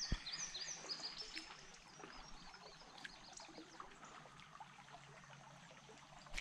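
Faint creek water trickling. For the first second or so a series of short, high chirping calls repeats a few times a second, and a single low thump comes just after the start.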